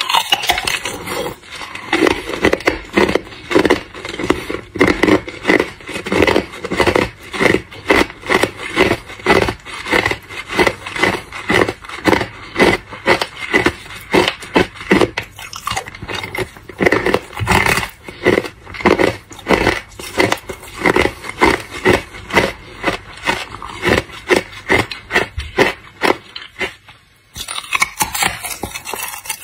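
Hard clear ice being bitten and chewed: a rapid run of crisp crunches, a few a second, with a brief pause near the end.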